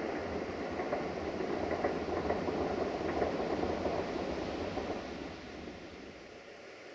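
Diesel locomotive running as it approaches with its train. The engine noise falls away about five and a half seconds in.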